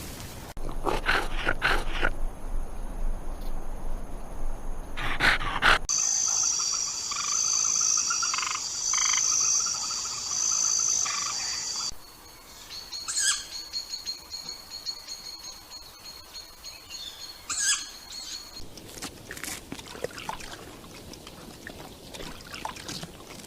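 Animal calls in several short clips, changing abruptly from one to the next, with a steady high-pitched chirping in the middle stretch.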